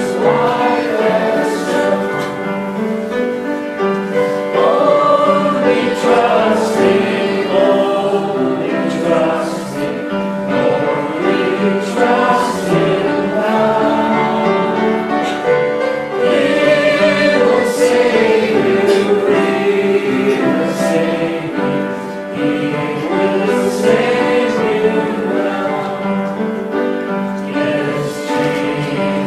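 Church congregation singing a hymn together over instrumental accompaniment.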